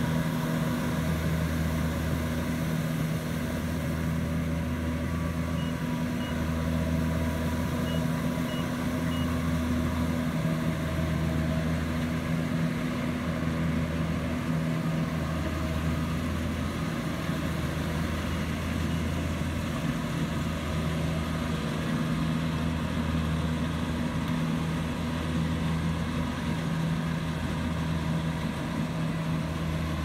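Kubota rice combine harvester's diesel engine and threshing gear running steadily while cutting rice. A low throb pulses about every two seconds.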